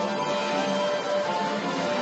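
Music playing, with a few held notes over a dense, steady backing.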